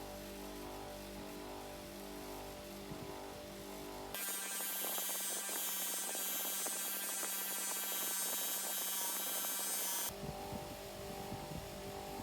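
A steady electrical hum. From about four to ten seconds in it gives way to a louder, brighter buzzing hiss with the low hum cut away, then the hum returns.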